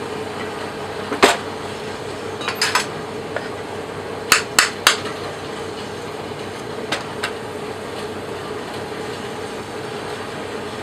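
Ball-peen hammer tapping a metal investment-casting flask to loosen the plaster investment inside. It gives a series of sharp knocks in small irregular groups over a steady hum, and the knocks stop about seven seconds in.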